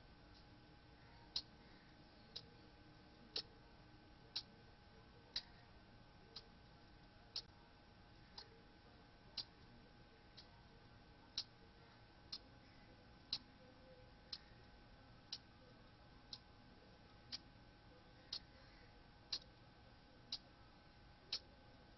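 Near silence broken by a sharp tick about once a second, alternating louder and softer, over a faint steady whine.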